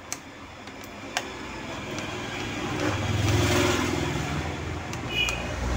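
A motor vehicle's engine swelling in level over the first few seconds and then holding, with a few sharp clicks.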